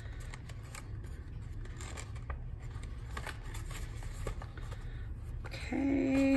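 Faint rustling and small clicks of paper and ribbon being handled as velvet ribbon is threaded through small punched holes in a paper gift holder, over a steady low hum. Near the end a person gives a brief, level hum.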